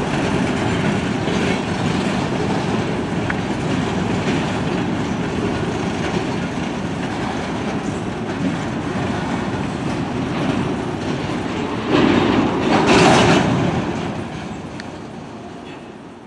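Railroad cars rolling past on the track, wheels clicking over the rail joints with a steady rumble. About twelve seconds in, a louder, sharper stretch of wheel noise comes for a second or so, then the sound fades away as the train moves off.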